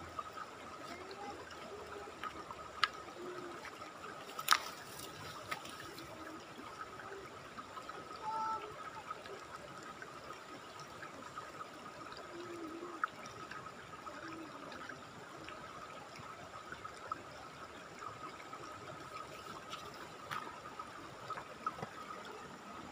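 River water running over rocks, a steady rushing with faint trickling. A few sharp clicks cut through it, the loudest about four and a half seconds in.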